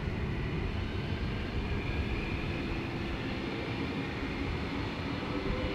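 Wind buffeting the microphone outdoors: a steady low rumble.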